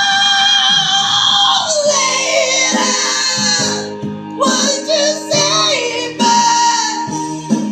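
A high, powerful singing voice over backing music: it holds one long high note for about the first two seconds, then goes on in shorter, broken phrases.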